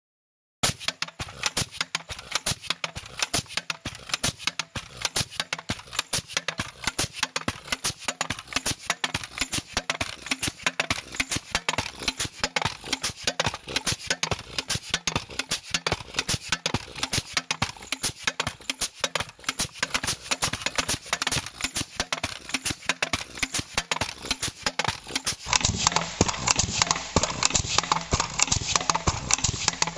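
Gasoline-powered Barco Pegson rammer running, firing and stamping its foot into the dirt in a rapid, steady rhythm of sharp blows. The blows sound louder and fuller about 25 seconds in.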